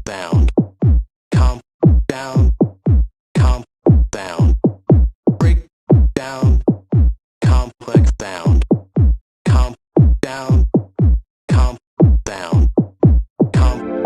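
Electronic music: a drum-machine beat of deep kick drums that drop in pitch, with crisp high hits between them. Near the end a sustained chord comes in.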